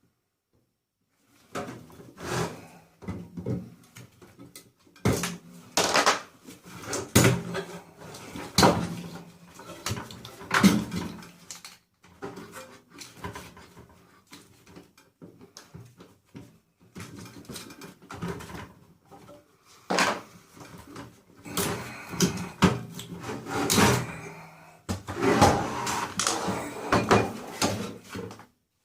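Irregular metallic clatter, knocks and scraping as the sheet-metal casing and parts of a microwave oven are handled and pried apart during dismantling, starting a second or two in and stopping abruptly at the end.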